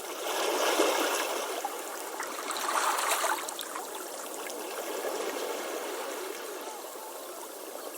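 Ocean waves washing onto a beach. The water surges in the first second and again about three seconds in, then settles into a steady wash.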